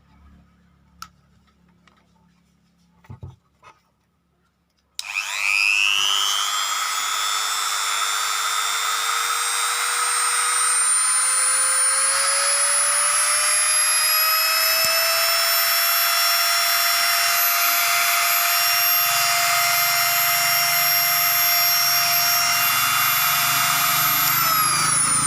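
Mini electric die grinder switched on and spinning up to a high whine, its pitch rising in steps as the speed dial is turned up toward its top setting of 6. It then runs steadily and winds down near the end as it is switched off.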